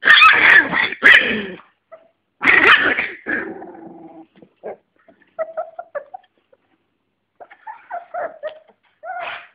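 A litter of 25-day-old American Staffordshire terrier puppies growling and yelping as they play-fight. Two loud, rough outbursts come in the first three seconds, followed by short, thin whimpers and yips.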